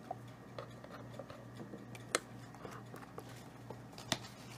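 Metal fork clicking against a white bowl as cauliflower florets are stirred into thin batter: scattered light clicks, with two sharper ones about two seconds in and near the end.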